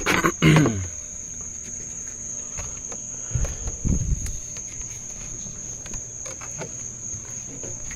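Crickets chirring in one steady high tone, with a few sharp handling knocks in the first second and low thuds of footsteps on gravel about halfway through.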